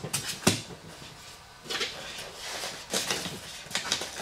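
Hands handling a styrofoam packing box and the foam model-plane parts in it: a sharp knock about half a second in, then a few scrapes and rustles.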